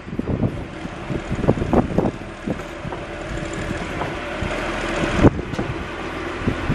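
John Deere 710 backhoe's diesel engine running steadily, with a single sharp click about five seconds in.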